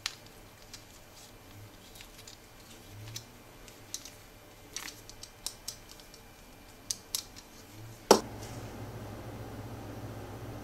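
Scattered light clicks and taps from the metal fittings of a small wooden flashlight as it is twisted and handled. About eight seconds in comes one sharp, louder click, after which a steady low hum carries on.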